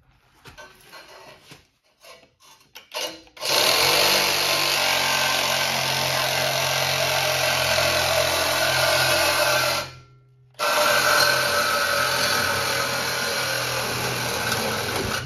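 Cordless reciprocating saw cutting through a car's exhaust pipe from underneath. It starts about three seconds in after a few light knocks, stops briefly about ten seconds in, then resumes cutting.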